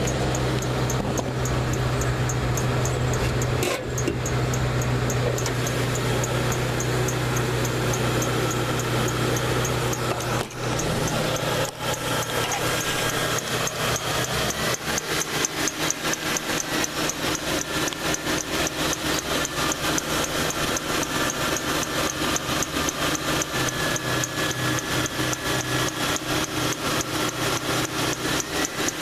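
Ford Crown Victoria V8 running at idle, with a rapid, even ticking. A deep hum is strong through the first third and fades out before the halfway point.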